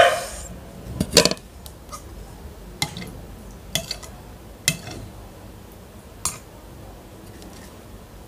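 A crisp crack as a hollow pani puri shell is poked open, then a metal spoon clinking against a bowl of pani several times as it is stirred and spooned out.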